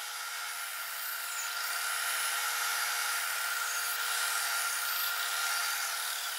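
Vertical belt sander running steadily while the end of a plywood strip is sanded to a rounded curve: a continuous sanding hiss over a faint steady hum.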